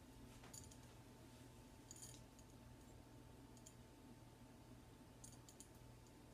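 Faint, scattered clicks of metal jewelry being handled: a lobster-claw clasp and chain being fastened onto a necklace, with a small cluster of clicks near the end. Otherwise near silence.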